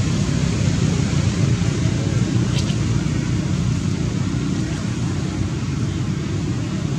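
Steady low rumbling background noise, with a brief faint high sound about two and a half seconds in.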